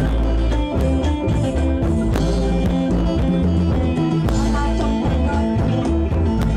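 Live Isan folk ensemble music: khaen (bamboo mouth organ) playing held chords over drums beating a steady dance rhythm.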